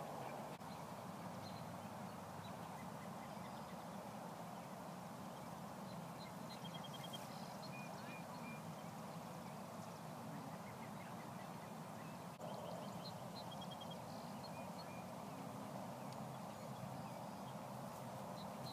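Steady outdoor background rush with birds calling now and then in short high chirps and trills.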